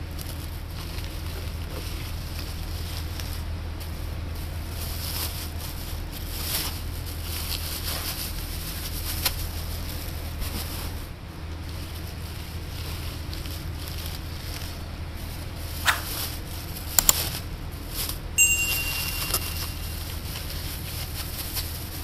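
Hands rustling leafy red tatsai heads and crinkling a thin plastic produce bag as the greens are pulled from hydroponic channels and bagged, over a steady low hum. A few sharp clicks and a brief high tone come near the end.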